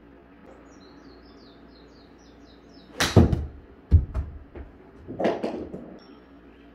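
Golf iron striking a ball off a hitting mat about three seconds in, a shanked shot, followed by several thuds and knocks as the ball hits the simulator screen and booth walls.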